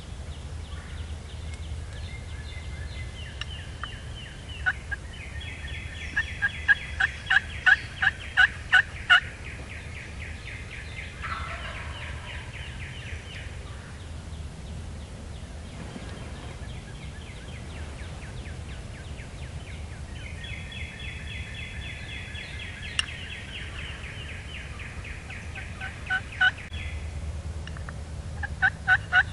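Wild turkeys calling and gobbling. A run of loud, evenly spaced notes starts about five seconds in, a falling call follows, and another run of notes comes near the end.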